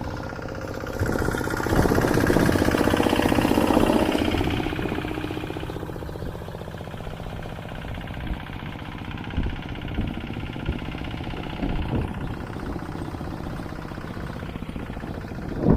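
Engine of a tractor ploughing a rice field, running steadily. It grows louder for a few seconds about a second in, then falls back to a steady level, with a few short knocks later.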